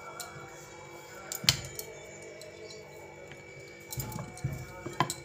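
Background music, with a few sharp knocks of a wooden rolling pin on a wooden rolling board as luchi dough is rolled out: one about a second and a half in, and a few more near the end.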